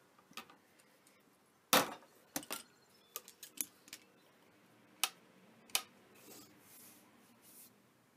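Hand pop-rivet tool squeezed on a metal clipboard clip until the rivet's mandrel snaps with one sharp crack, followed by several lighter clicks and knocks as the tool and board are handled and set down. Near the end comes a soft metallic jingle.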